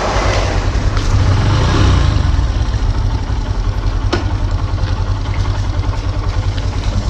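Honda Dream 110's single-cylinder engine idling with a steady pulse, swelling briefly about a second or two in. A sharp click about four seconds in.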